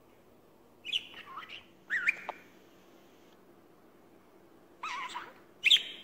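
Budgerigar giving four short chirping calls with gliding pitch, in two pairs: one pair about a second in, another near the end, the last call the loudest.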